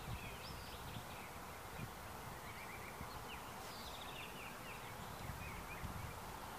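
Wild birds chirping and trilling in short bursts of song over a steady, faint background hiss.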